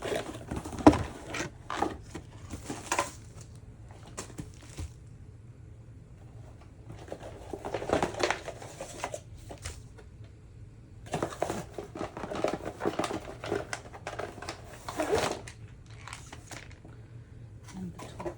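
Crinkling and rustling of a diamond painting kit's paper and plastic packaging being handled, in irregular bursts, with a sharp knock about a second in.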